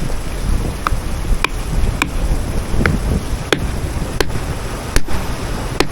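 Hammer tapping on a stone nodule: about eight sharp, slightly ringing strikes, a little under a second apart.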